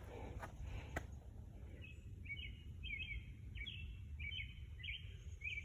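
A bird chirping a quick run of short, high notes, starting about two seconds in, over a steady low rumble.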